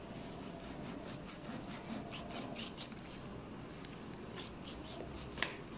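Large kitchen knife sawing through raw beef on a plastic cutting board: a run of quick back-and-forth slicing strokes, with a single sharp click near the end.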